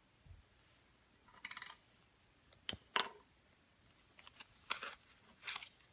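Small clicks and light scraping of coin-cell batteries and a plastic key fob housing being handled, with a sharp click about three seconds in as the loudest.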